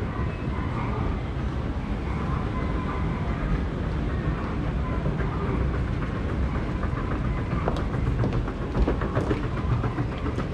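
Train running with a steady low rumble, with a quick run of rail clicks in the second half.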